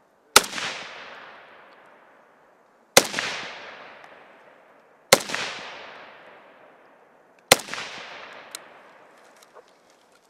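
Four single rifle shots, spaced about two to two and a half seconds apart, each with a long echo dying away. A few light clicks and rattles follow near the end as the shooter moves off.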